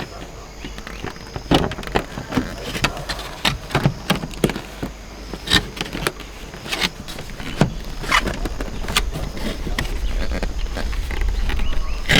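Irregular clicks and knocks of objects being handled, over a low rumble that grows louder near the end.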